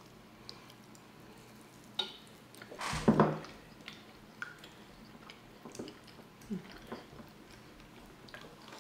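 Close-miked eating sounds: chewing and small wet mouth clicks from people eating cheesy chicken quesadillas, with a couple of louder moments about two and three seconds in.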